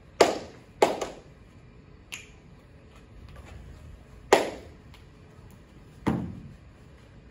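Body percussion by children: sharp hand claps, two close together near the start, a lighter one about two seconds in and another just past four seconds, then a heavier stomp of feet on the floor around six seconds in. Each strike dies away with a short room echo.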